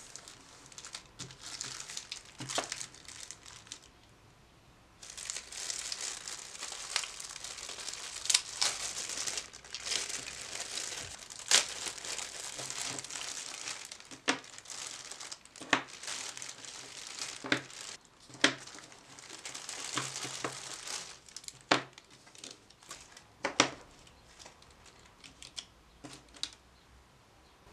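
Clear plastic wrapping crinkling and tearing as individually wrapped watercolour half pans are unwrapped by hand, with sharp clicks as the small pans are handled and set down. There is a brief lull a few seconds in, and it quiets near the end.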